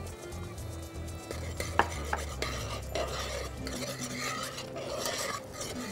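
A spoon stirring tomato sauce in a stainless steel saucepan, with light scrapes and clicks against the pot.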